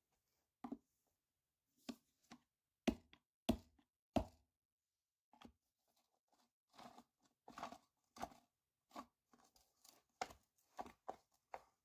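Screwdriver working the screws of a tower speaker's enclosure, with handling knocks against the cabinet: an irregular string of clicks and taps, the three loudest knocks about three to four seconds in.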